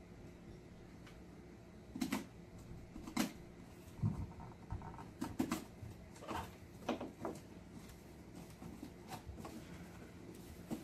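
Knife slitting the packing tape along a cardboard box, with irregular scrapes, taps and rustles as the blade drags and the box is handled and turned on the table.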